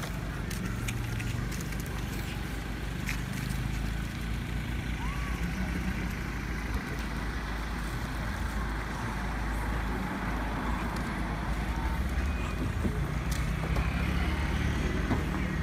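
Steady low vehicle rumble under a hiss of outdoor noise, a little louder in the second half, with a few faint short chirps above it.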